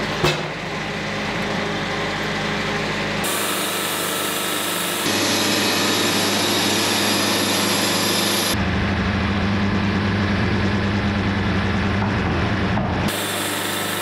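Wood-Mizer Super 70 band sawmill running and sawing through an eastern red cedar log: steady engine and blade noise whose tone changes abruptly a few times, about 3, 5, 8 and 13 seconds in.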